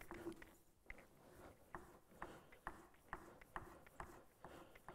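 Faint, quick strokes of a bench plane iron being pulled across a leather strop, about two a second, as the corners of the bevel are polished.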